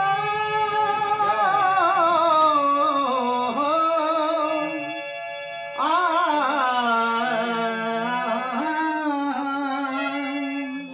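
A man singing long, wordless held notes with a wavering pitch over a harmonium's steady chords, in two long phrases; the second begins about six seconds in.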